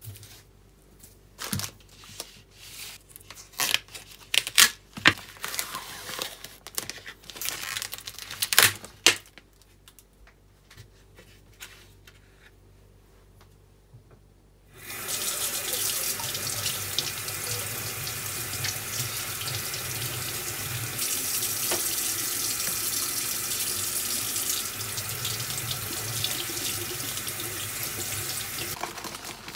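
A series of sharp clicks and knocks of things being handled, then a kitchen tap running steadily into a sink for about fourteen seconds, turned off just before the end.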